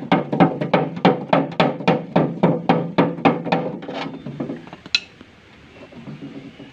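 Hammer striking the sheet tin of a homemade drum stove, about three even blows a second, beating down the cut flap at its fuel opening. The hammering stops a little past four seconds in, and one sharp click follows about a second later.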